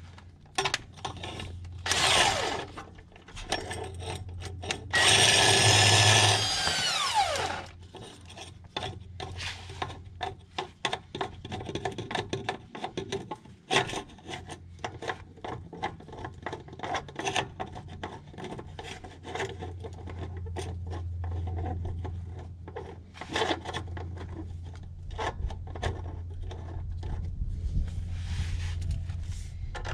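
Tailpipe expander being tightened inside a steel exhaust pipe to flare its end: a long run of clicks, knocks and metal rubbing. About five seconds in there is a louder stretch with a whine that falls in pitch as it stops.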